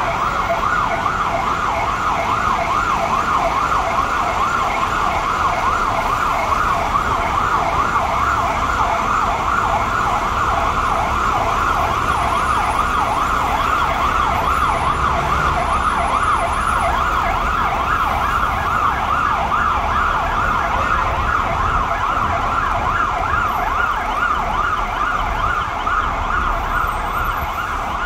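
Several emergency vehicle sirens sounding together at a fire scene, a fast rising-and-falling warble that overlaps and runs on without a break, over the low rumble of engines and traffic.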